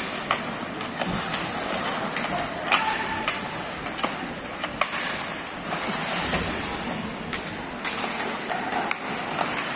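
Ice hockey in play: skates scraping across the ice, with frequent sharp clacks of sticks and puck.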